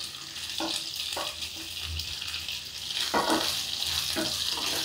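Boiled potato cubes sizzling as they drop into hot oil with cumin seeds and green chillies in a non-stick kadai. A wooden spatula stirring them knocks softly against the pan a few times.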